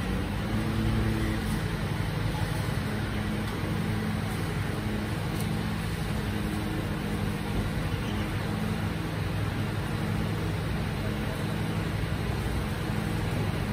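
Mercedes-Benz Arocs garbage truck's diesel engine idling steadily.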